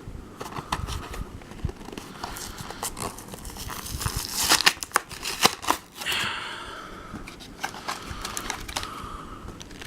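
Plastic blister pack and card backing of a diecast toy car being torn and pulled open by hand: a run of crinkling and crackling, loudest about halfway through.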